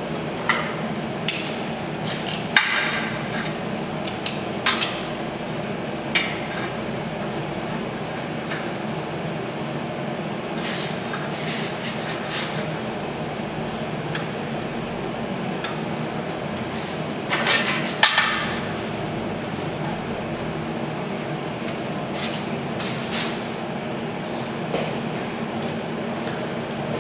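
Scattered metallic knocks and clinks of steel tubing and bar clamps being handled on a steel welding table, over a steady hum. The louder knocks come a few seconds in and in a cluster a little past the middle.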